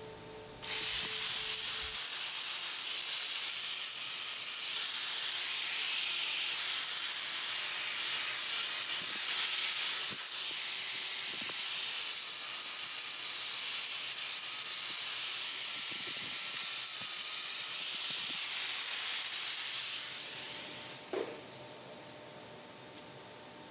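Angle grinder grinding down the welded, closed end of a 2-inch schedule 40 steel pipe: a steady, loud hiss of disc on steel starting about a second in, then the grinder winding down near the end.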